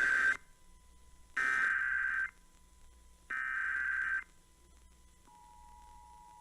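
Emergency Alert System SAME header: three bursts of rapid, modem-like digital data tones, each about a second long and about a second apart. The first ends just after the start. About five seconds in, the fainter two-tone EAS attention signal starts as a steady dual tone.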